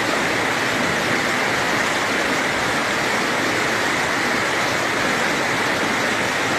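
Muddy floodwater rushing down a village road in a steady, loud, unbroken torrent: a small mountain stream swollen by several days of continuous rain, dammed at the side of a bridge and overflowing onto the street.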